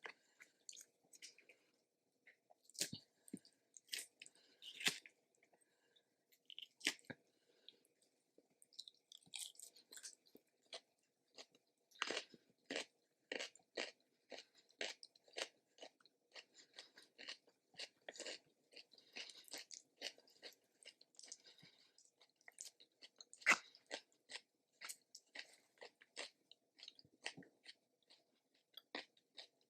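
Close-up chewing and crunching of food, a string of short, sharp mouth clicks at irregular intervals, with one louder crunch about two-thirds of the way through.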